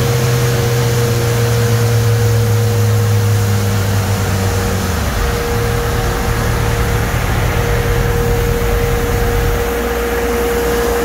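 Motorcycle dynamometer bay just after a run: a steady whine over rushing, fan-like noise, with a low hum that drops in pitch about halfway through and again near the end.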